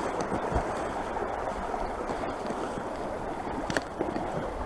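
Creek water running steadily over and around logs, with a couple of faint clicks near the end.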